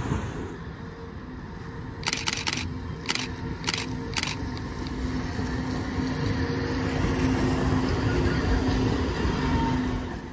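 DUEWAG/Siemens MGT6D tram passing close on wet rails, with a steady electric motor hum and wheel-on-rail rumble that grow louder as it nears. About two seconds in there is a quick run of sharp clicks.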